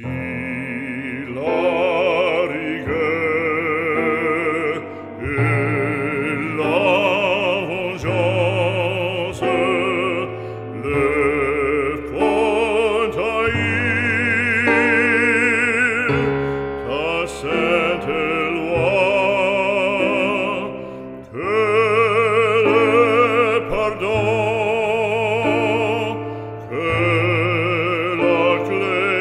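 Operatic classical music: a solo voice sings long phrases with a wide vibrato over a sustained accompaniment, pausing briefly between phrases.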